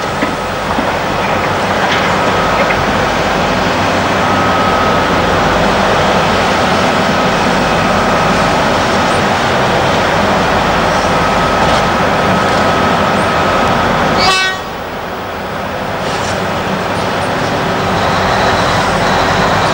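Diesel engines of a heavy hydraulic excavator and a rigid dump truck running steadily under load, with a thin steady whine over the engine noise for much of the time. About two-thirds of the way in the sound drops suddenly, then builds back up.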